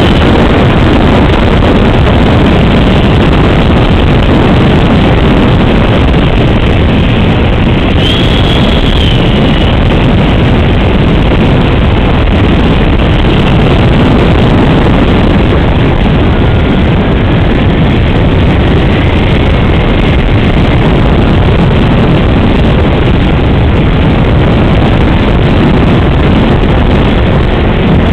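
The 70mm SAPAC MB-1 electric ducted fan of an RC jet in flight, heard from an onboard camera: a loud, steady rush of fan and airflow with wind on the microphone. A faint high whine steps up in pitch about eight seconds in, and another faint whine rises past the middle.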